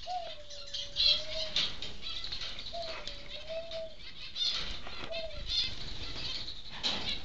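Caged zebra finches chirping rapidly and fluttering about, with short high calls throughout. A low, steady tone sounds three times: twice for over a second, once briefly.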